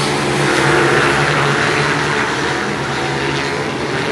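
Several stock pit bikes' small single-cylinder four-stroke engines running together around the track in a steady mix of engine notes.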